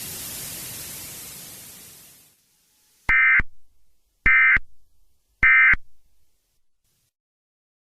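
A hiss of static fades out, then three short bursts of EAS SAME data tones sound a little over a second apart: the end-of-message (EOM) signal that closes an Emergency Alert System alert.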